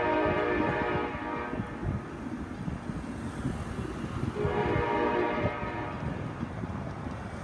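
Amtrak passenger locomotive's horn sounding two blasts, a chord of several notes. The first ends about a second in, and the second starts about four and a half seconds in and lasts nearly two seconds. A low rumble runs underneath.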